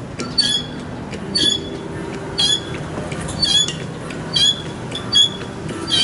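A high squeak repeating about once a second, seven times, over a low steady hum: a hydraulic pump being stroked to drive the ram of an HHM-200W hydraulic busbar bender.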